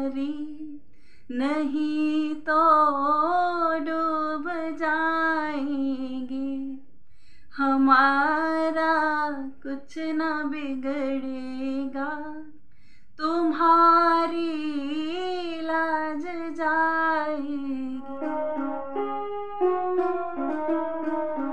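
A woman singing a devotional bhajan melody in three long, ornamented phrases with short breaths between them. About 18 seconds in the voice stops and a keyboard plays a short melodic interlude of sustained notes.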